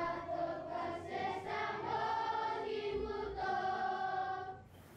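Several voices singing together in harmony, holding long notes, then cutting off suddenly near the end.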